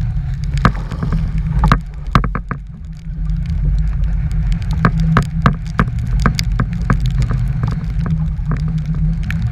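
Strong wind buffeting the microphone, a constant low rumble, with many irregular sharp taps and clicks over it.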